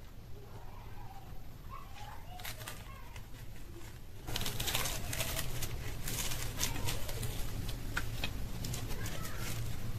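Crisp deep-fried green-pea kochuri (koraishutir kochuri) being picked up and torn apart by hand. Its crust makes faint crackles at first, then a much louder, dense crackling from about four seconds in as it is ripped into pieces.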